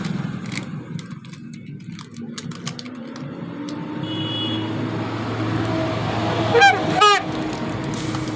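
Repaired vehicle horn (bhopu) being tested with two short blasts about six and a half seconds in, over a vehicle engine running steadily, with a few light clicks.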